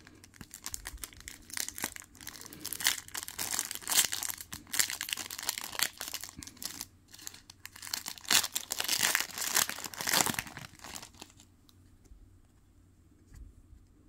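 A foil trading-card pack wrapper, Topps Chrome UFC, crinkling and tearing as it is pulled open by hand, in uneven bursts of crackle for about eleven seconds. After that it goes quiet, with a few faint ticks as the cards are handled near the end.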